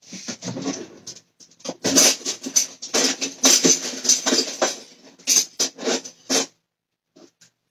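Pots and pans being rummaged through, a quick irregular run of clattering knocks and scrapes that thins out near the end.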